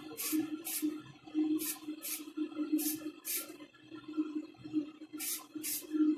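Aerosol spray can of yellow gloss paint giving about nine short hissing blasts, mostly in quick pairs, as light coats go onto a die-cast model car body. A fan hums steadily underneath.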